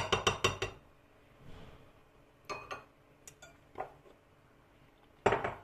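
Glass mixing bowl and spatula clinking and knocking while cake batter is handled: a quick run of taps at the start, a few single knocks in the middle, and a louder clatter near the end.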